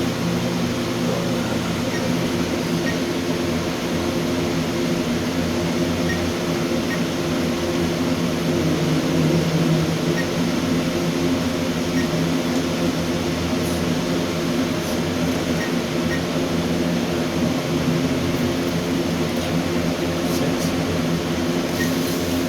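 Steady hum of room ventilation or air conditioning, with faint short beeps now and then, typical of key presses on an alarm keypad.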